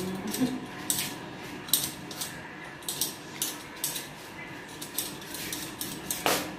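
A kitchen knife peeling raw potatoes, making short scraping strokes against the skin, about two or three a second, with a louder clack near the end.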